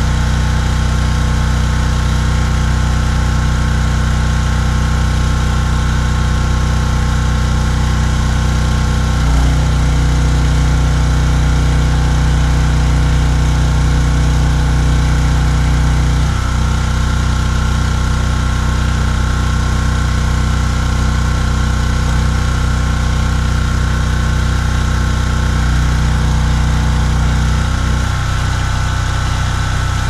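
DuroMax XP4850EH dual-fuel generator running steadily on propane, its single-cylinder engine carrying the load of refrigerators and freezers plugged into it. The engine note shifts briefly about nine seconds in, again around sixteen seconds, and once more near the end.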